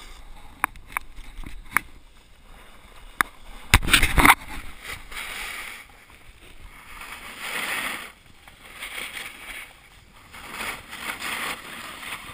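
Edges sliding and scraping over packed snow in repeated swells as the rider turns down the slope. There are a few sharp clicks in the first few seconds and a burst of loud knocks about four seconds in.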